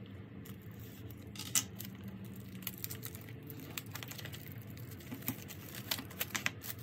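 Clear plastic shrink-wrap being torn and peeled off a small cardboard album box: crinkling with scattered sharp crackles, the loudest about one and a half seconds in and a quick run of them near the end.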